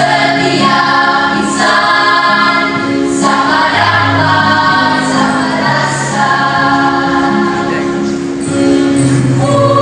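A junior high school choir singing in harmony, holding long chords that change together every second or so, with the singers' 's' sounds landing together.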